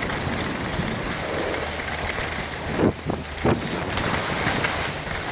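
Skis sliding over groomed snow with wind rushing on the microphone, a steady hiss broken by a brief dip and two short scrapes about three seconds in.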